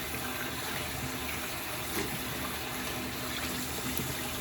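Water running steadily from a tap into a sink while hands are washed.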